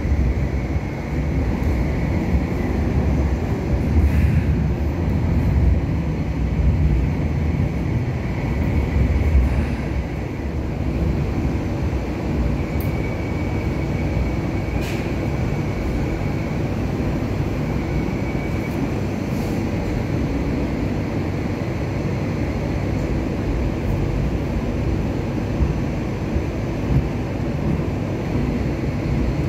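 Hong Kong Light Rail Phase III car running along the track: a steady low rumble of wheels and running gear, heavier in the first ten seconds. There is a faint high whine in the middle and a few light clicks.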